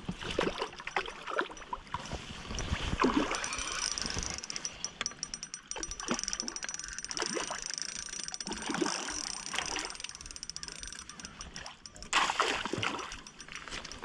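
Hooked stocked trout thrashing at the water's surface close to shore, making irregular splashes, with a louder burst of splashing near the end.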